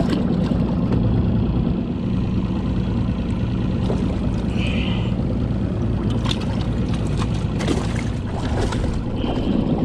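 Outboard motor idling steadily. A few knocks and rustles about six to nine seconds in, as fish are moved from the livewell into a weigh bag.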